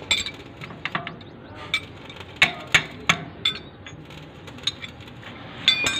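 Steel spanners and wrenches clinking and knocking against each other and the tractor's metal, in scattered sharp clicks with a quick rattle of several near the end.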